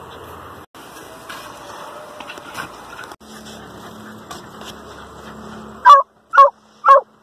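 Hunting dog at an armadillo burrow giving three loud, short barks about two a second near the end, after several seconds of low scuffling noise at the hole.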